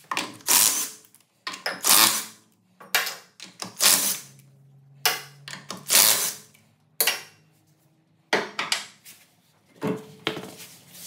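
Hand tools and loose metal hardware clattering and scraping during work under a car, in a dozen or so short, sharp bursts spaced roughly a second apart.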